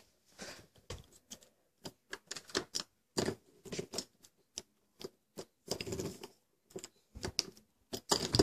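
Irregular clicks, taps and soft knocks of footsteps and handling close to a phone's microphone, with a few brief rustles around the middle and near the end.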